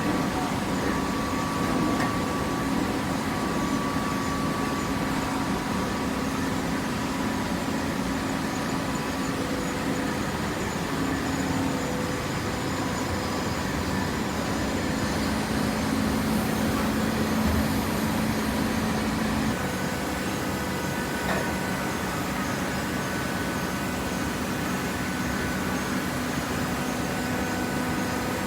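Auto-feed corrugated cardboard baler running: a steady machine hum with a few held tones, its note changing about twenty seconds in.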